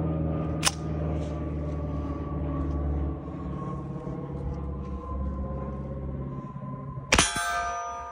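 A steady low drone with a slowly falling tone fades out; then, about seven seconds in, a 9mm carbine shot hits a steel target plate, which rings with a bright clang.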